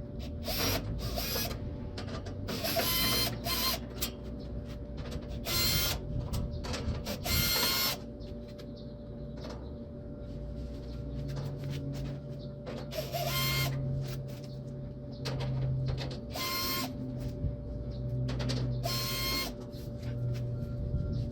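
Small electric drill-driver whirring in short bursts, about a dozen of them, each under a second to about a second long, backing out the nuts that hold the air conditioner's cover. A low hum joins in about halfway through.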